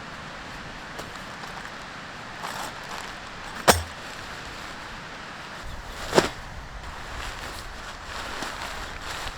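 Two sharp knocks from tent-pitching gear, about two and a half seconds apart, over a steady hiss of wind and surf.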